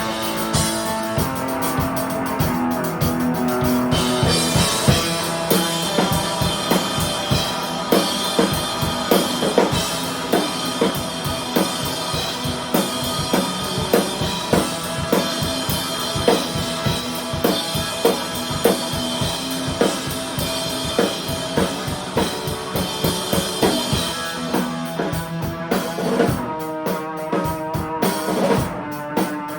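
A rock band jamming: a drum kit keeps a steady beat on bass drum and snare under held guitar chords.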